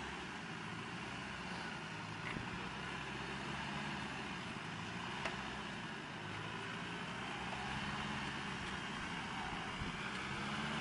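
Range Rover's VM diesel engine running steadily at low revs while the truck sits stuck in mud; the revs pick up slightly near the end. A couple of faint clicks can be heard.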